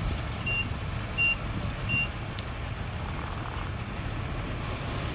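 A heavy vehicle's reversing alarm beeps three times, about one beep every 0.7 s, over the steady low rumble of a diesel engine. The beeps stop about two seconds in, and a single sharp click follows shortly after.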